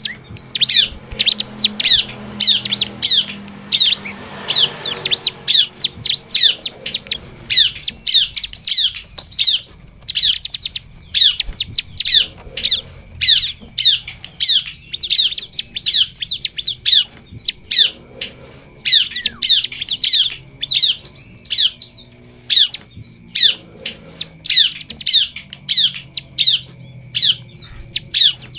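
Bar-winged prinia (ciblek) singing: a fast, nearly unbroken chattering of sharp, high, downward-sweeping notes, with denser rattling bursts every few seconds.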